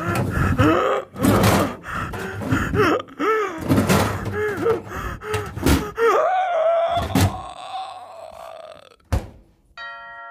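Wordless vocal sounds, swooping up and down in pitch, broken by several sharp thunks; a multi-tone doorbell chime starts near the end.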